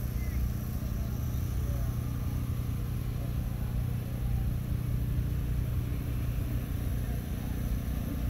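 Steady low engine drone, unchanging throughout, with faint voices in the background.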